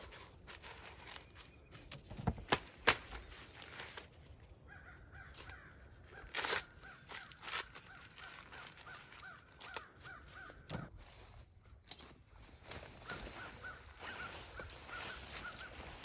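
Crows cawing faintly in repeated runs of calls, over quiet rural background. A few sharp clicks or knocks stand out about two to three seconds in.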